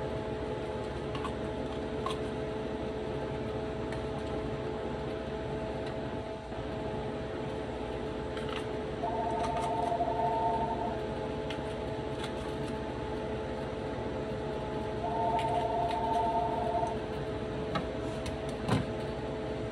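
Kitchen range-hood extractor fan running with a steady, multi-toned hum; a second, higher hum joins twice for a couple of seconds. Faint scattered clicks of a knife cutting green pepper against a plate.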